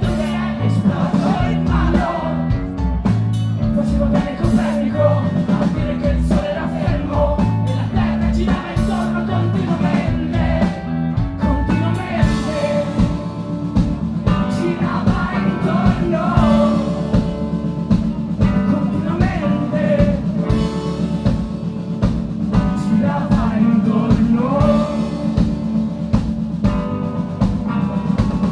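Live rock band playing loud: electric guitars and drums with a male lead vocal singing over them.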